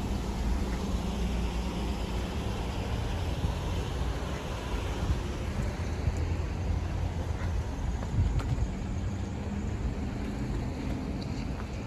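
Steady low rumble of vehicle road noise, with faint wind on the microphone.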